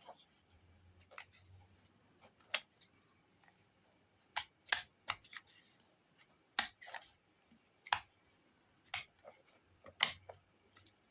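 QSP Canary folding knife being handled, its blade opening and closing. About a dozen sharp, irregular clicks and snaps, with the loudest near the middle and near the end.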